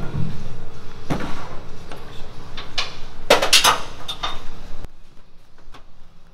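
Scattered sharp metallic knocks and clinks over steady workshop room noise. A knock comes about a second in, and a louder cluster of bright, ringing clinks about three and a half seconds in. The background drops off abruptly near the end.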